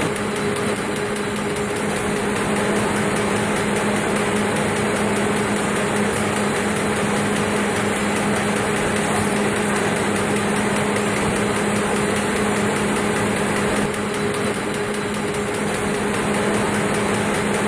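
Steady running noise of a WEBjet 200D digital web press line and its Smart Stacker conveyor: a constant even hiss with a steady low hum, dipping slightly about 14 seconds in.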